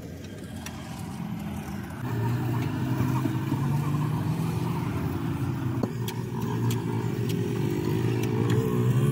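A vehicle engine running steadily, coming in about two seconds in, its pitch rising a little near the end, with a few light clicks of hand tools on the engine's valve gear.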